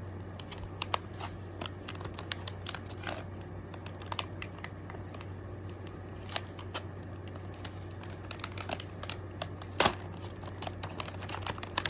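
Packaging being handled: scattered light clicks, taps and crinkles, with a louder rustle about ten seconds in, over a steady low hum.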